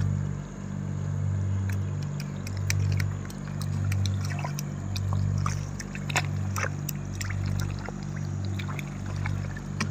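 Feet wading and sloshing through shallow river water, with small splashes and drips as a hand net is dipped and lifted. Under it runs a low hum that swells and fades about once a second.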